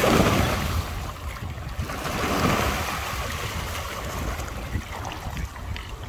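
Water splashing and churning in two surges, at the start and about two and a half seconds in, as a dense crowd of swans, ducks and coots jostles on the water, over a steady low wind rumble on the microphone.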